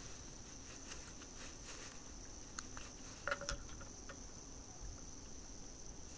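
Faint small clicks and taps as a small glass essential-oil bottle is opened and tipped over a glass jar of water, over a steady faint high-pitched hiss. The most distinct clicks come a little before and after the middle.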